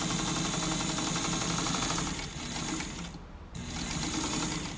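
1958 Windsor straight-stitch sewing machine, a Brother-built Singer 15-class clone with an oscillating hook, stitching through cotton and running steadily. After about two seconds it slows, stops briefly, then runs again for about a second before stopping near the end.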